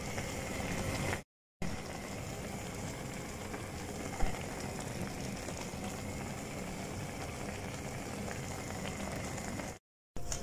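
Shrimp and vegetable stew in tomato sauce simmering in a frying pan: a steady bubbling hiss. The sound cuts out briefly twice.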